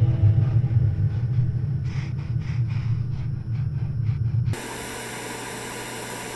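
Soundtrack sound design: a low, steady rumbling drone with a few held tones and a faint pulsing, cut off suddenly about four and a half seconds in by a steady hiss like static.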